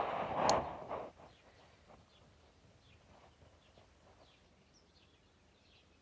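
A loud rushing noise fades out within the first second, with a sharp click about half a second in; after that only faint, short high chirps repeat over quiet outdoor background.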